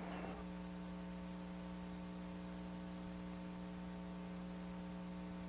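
Steady electrical mains hum, a low buzz with a thin high whine above it, unchanged throughout; the last of the earlier track sound dies away within the first half second.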